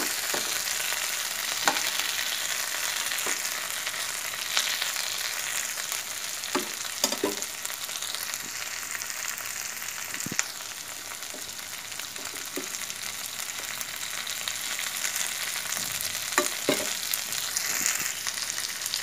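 Mutton chops shallow-frying in oil in a flat pan on a low flame: a steady sizzle, with a few sharp clicks and scrapes from a metal spatula against the pan.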